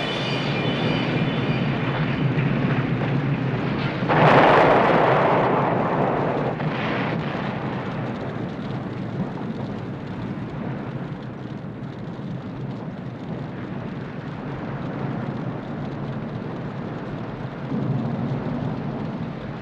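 Explosion sound effect: a continuous rumble with a louder blast about four seconds in, slowly dying away, with a smaller swell near the end. It is the sound of the overloaded chain of extension cords blowing up as one more thing is plugged in.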